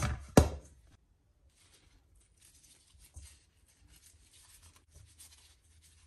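A sharp knock just under half a second in, then faint soft tearing and crackling as gloved hands pull pomelo flesh apart into small pieces over a stainless steel bowl.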